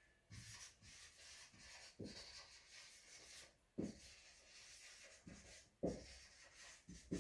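Whiteboard marker scratching across a whiteboard as words are written by hand. A few short knocks come as the marker meets the board.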